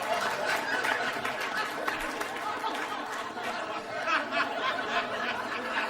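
A crowd of people laughing and chattering together, many voices overlapping without pause.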